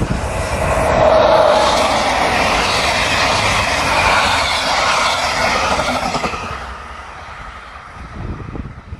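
Electric locomotive-hauled passenger train passing at speed, its wheels rumbling on the rails, loudest as the locomotive goes by about a second in. The noise fades after about six seconds as the last coaches pass.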